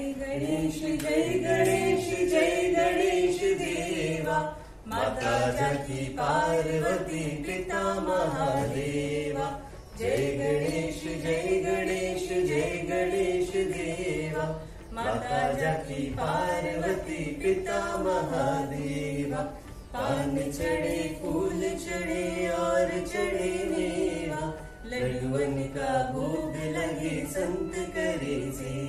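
A small group of voices chanting a Hindu devotional aarti hymn in unison, in steady phrases of about five seconds each with a short break between them.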